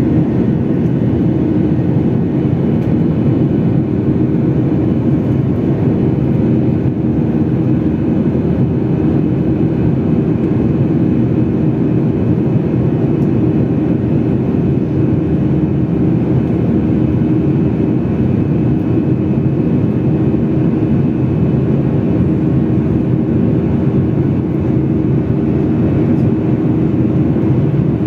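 Steady cabin noise of a jet airliner in flight: its turbofan engines running, heard from a window seat beside the engine. It is a low, even drone with faint steady tones.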